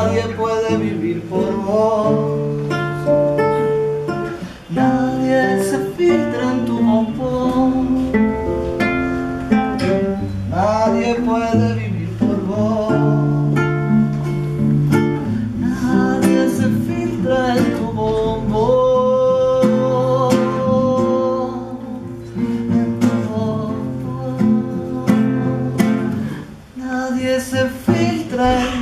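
An acoustic guitar played live with chords and picked notes, and a voice singing along.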